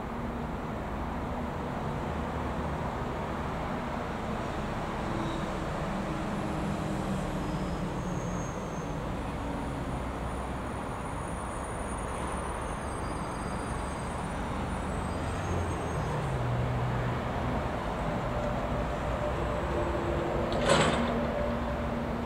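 Class 66 diesel-electric locomotive approaching with a train of container wagons, its engine running as a low rumble that grows slowly louder as it nears. A single sharp knock comes near the end.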